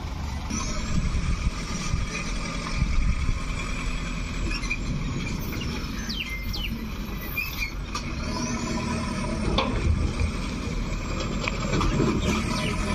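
Diesel engine of a Tata goods truck running steadily under load as the truck pulls slowly off a ferry pontoon up a ramp, a low rumble throughout. A few short high chirps sound around the middle.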